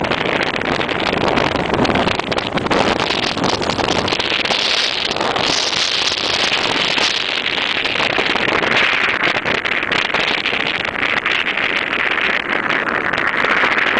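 Wind buffeting the microphone, mixed with the noise of a truck driving over the snow-covered lake ice. A steady, loud rush that turns brighter and hissier for a few seconds in the middle.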